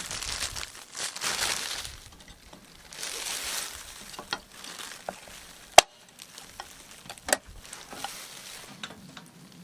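Close-up rustling and handling of objects, with two sharp clicks or knocks, the first about six seconds in and the second a second and a half later.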